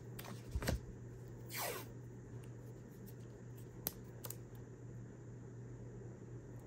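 Faint handling of washi tape on paper: a short tearing sound that falls in pitch about one and a half seconds in, and a few light clicks and taps as strips are pressed down, over a low steady hum.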